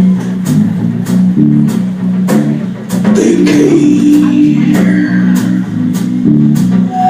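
Band playing an instrumental passage: a bass guitar line under guitar, with a steady beat.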